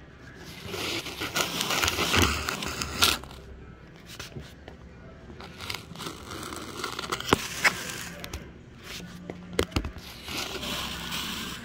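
Rustling and scraping handling noise, loudest in the first few seconds, with a few sharp clicks in the second half.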